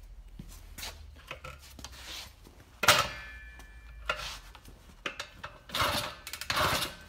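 Scattered knocks, scrapes and rubbing from hands working around the mini bike and camera, with no engine running. The loudest is a sharp knock about three seconds in, followed by a brief metallic ring, and more clatter comes near the end.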